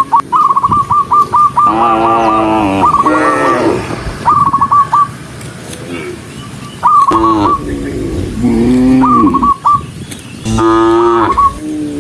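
Cattle mooing: about five long moos from the herd, one after another. Between the moos a bird gives quick runs of short whistled notes.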